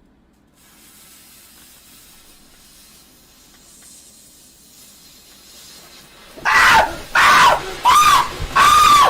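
Novelty firework's fuse hissing faintly, then a run of loud, high-pitched squeals from the firework about six and a half seconds in, one every 0.7 s or so, each rising and falling in pitch.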